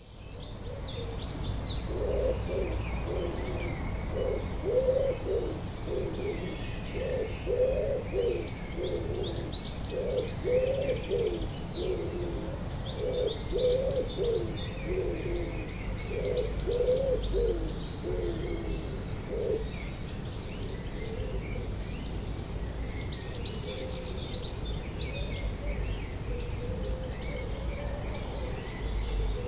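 Dawn chorus of many songbirds singing high chirps and trills together. A pigeon coos a repeated low phrase underneath and stops about two-thirds of the way through, over a steady low rumble.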